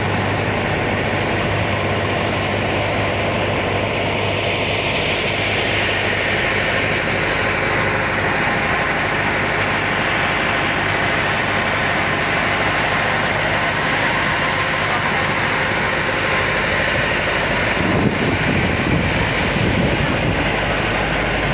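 Motorised outrigger boat under way: its engine drones steadily under a constant rush of wind and water. Some louder, uneven low rumbling comes in near the end.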